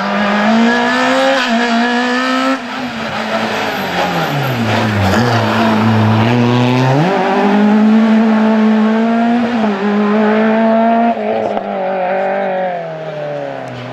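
Renault Clio slalom car's engine revving hard. The revs fall about four seconds in as it slows for a hairpin, then climb sharply about seven seconds in as it accelerates away and hold high.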